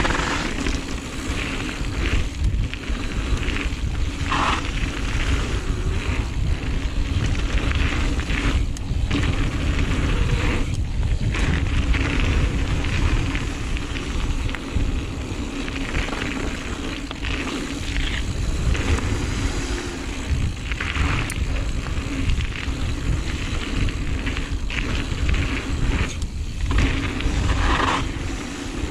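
Wind rushing over a GoPro's microphone and mountain-bike tyres rolling on a dirt flow trail during a descent, with short bursts of rattle from the bike over bumps.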